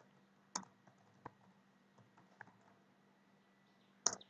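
Faint computer keyboard keystrokes: a few scattered clicks about a second apart, with a louder double click near the end, over a faint steady electrical hum.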